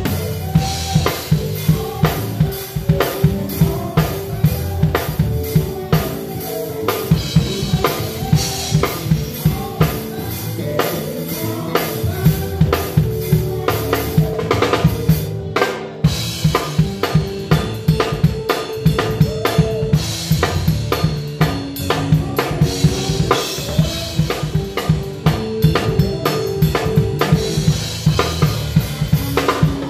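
Drum kit played hard and close up in a live gospel band, with a steady groove of bass drum, snare and cymbal strokes over sustained keyboard and horn lines. There is a short break about halfway through before the groove comes back in.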